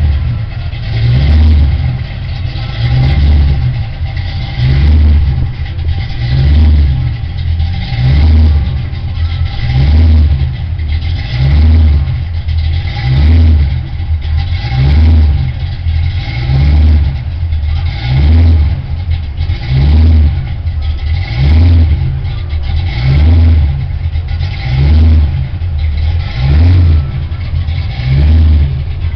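Supercharged 540 cubic-inch big-block V8 in a 1969 Camaro RS idling. Its loud, lumpy note swells and falls regularly, about every 1.7 seconds.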